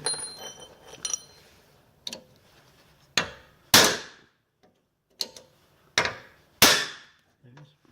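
Hammer blows on a cold chisel driven against the stub of a rivet in a steel saw plate, about eight strikes roughly a second apart, the plate ringing briefly after the first. The chisel is cutting away the rivet's last remains.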